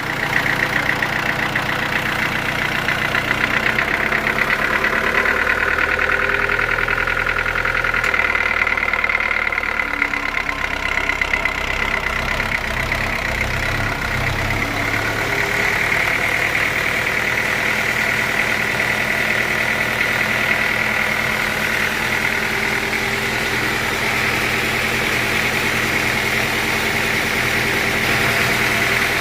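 Sawmill machinery running steadily: an engine with a low rumble under a constant high whine, starting abruptly.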